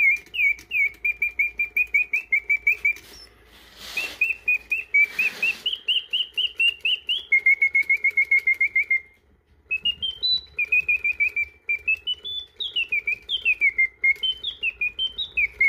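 Karl Griesbaum round-cage singing bird automaton, its freshly restored bellows driving the piston whistle through rapid trilled chirps and rising and falling warbled phrases. The song breaks off briefly twice, with two short breathy hisses in the middle.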